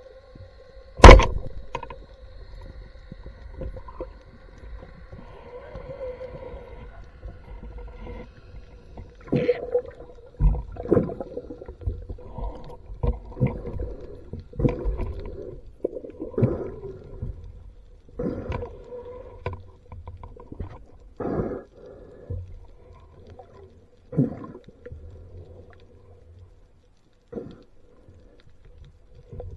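Underwater sound through a camera housing: a steady hum with a loud sharp click about a second in, then irregular knocks, thuds and gurgles from the diver moving and handling the speargun.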